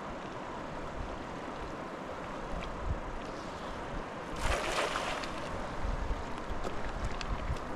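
A fast river rushing steadily, with wind buffeting the microphone. About halfway through comes a brief, louder rush of noise lasting under a second.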